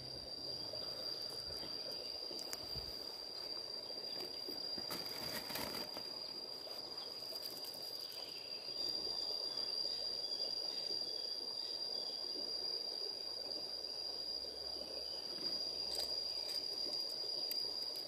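Insects trilling steadily in one unbroken high-pitched tone, over a faint background hiss.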